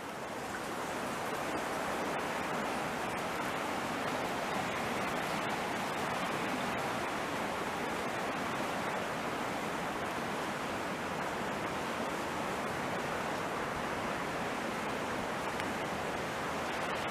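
Steady rushing of a fast-flowing creek running high, an even hiss with no change.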